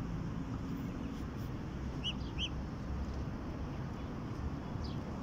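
Ducklings peeping: two short, high peeps in quick succession about two seconds in and a fainter one near the end, over a steady low rumble.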